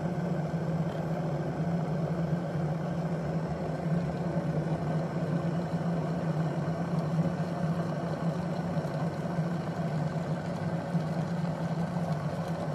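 Glass electric kettle heating water toward the boil: a steady rumble and hiss of bubbling water.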